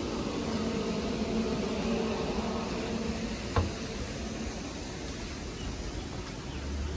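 Steady outdoor background noise with a faint engine hum through the first half, and a single sharp click about three and a half seconds in.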